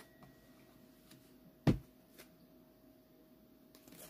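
One sharp knock about a second and a half in, the loudest thing heard, against quiet room tone with a faint steady hum.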